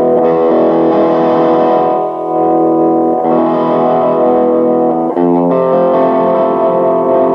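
Yamaha Studio Lord SL-500 electric guitar playing held, ringing chords through an amplifier. The chord changes about three seconds in, and a short change of notes comes around five seconds in.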